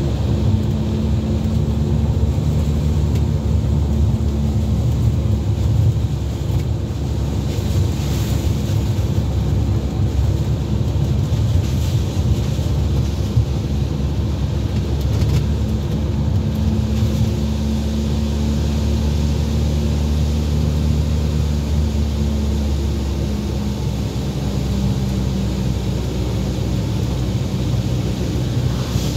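Car interior while driving on a wet road: a steady low drone of engine and tyre noise, with the engine note shifting now and then as the speed changes.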